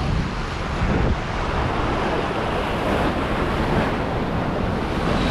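Ocean surf churning and washing in a steady rush, with wind buffeting the microphone.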